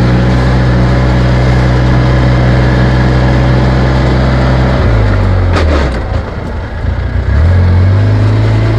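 Side-by-side off-road vehicle's engine running steadily while driving a dirt track. About five seconds in the engine note drops and eases off for a moment, then picks up again near the end.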